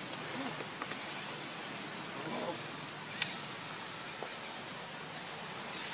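Insects droning steadily on one high, thin tone, with a single sharp click about three seconds in.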